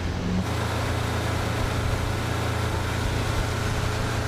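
A heavy engine running steadily with a low, even drone over a wash of noise. The sound changes abruptly about half a second in.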